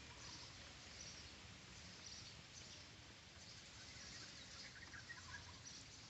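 Near silence: faint outdoor ambience with soft, high chirps repeating roughly once a second.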